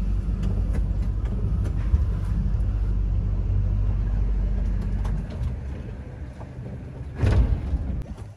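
Steady low engine rumble heard inside a boat's cabin, dropping away about five seconds in, followed by a brief loud rush of noise shortly before the end.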